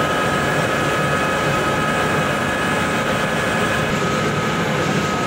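Yulong XGJ560 vertical ring-die pellet mills running steadily while pressing sawdust into pellets: a loud, unbroken mechanical din with a constant high whine over it.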